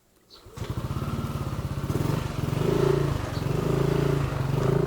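Motorcycle engine running through a newly fitted WF power pipe aftermarket exhaust. It comes in suddenly about half a second in with a fast, even beat, then settles into a steadier hum that shifts a little in pitch.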